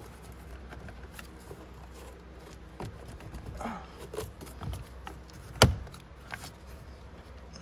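Scattered small clicks and knocks of plastic steering-column trim being worked by hand, with one sharp, much louder click or knock a little past halfway, over a low steady hum.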